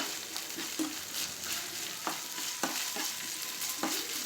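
Chopped onion sizzling in hot oil with ginger and garlic as it is stirred and sautéed in a pan, with several sharp clicks of the stirring spoon against the pan.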